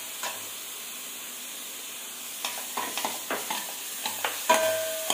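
Onion paste with green chilli and garlic sizzling in oil in a stainless steel kadai. About halfway in a steel ladle starts scraping and knocking against the pan, with one loud ringing metal clang near the end.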